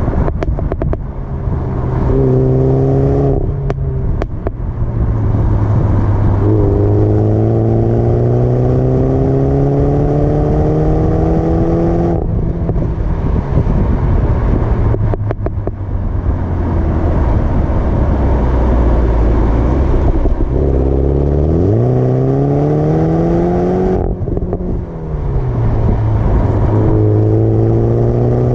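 Exhaust of a Mini Countryman John Cooper Works' turbocharged four-cylinder engine while the car drives, heard at the tailpipe. The engine note climbs in pitch through a few long pulls, breaking off at the gear changes, with short sharp crackles when the throttle lifts.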